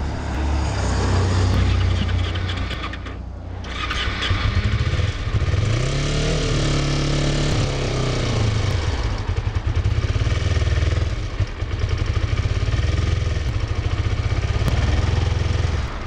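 Kawasaki Ninja 250R's parallel-twin engine running at idle with an uneven throb, revved up and let back down once about six to eight seconds in. The rider takes its running for a sick engine that needs a tune-up.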